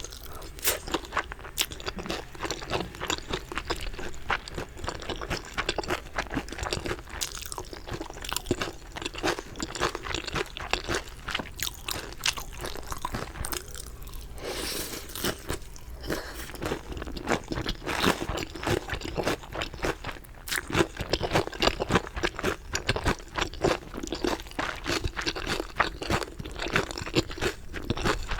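Close-miked eating of crunchy chicken: a steady run of crisp crunches and chewing, with a short lull about halfway through.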